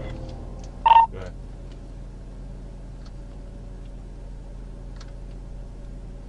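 Steady low hum of an idling, parked patrol car, with one brief loud beep about a second in and a few faint ticks.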